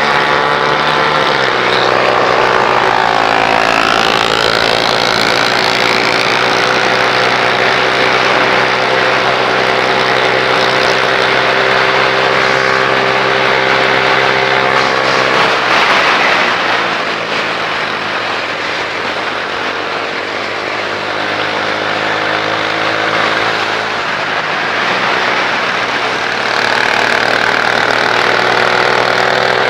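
Motorcycle engines running on a group ride, their pitch falling and rising with throttle and gear changes, with wind noise. A noisy surge about sixteen seconds in is followed by a quieter, lower stretch, and the engine climbs again near the end.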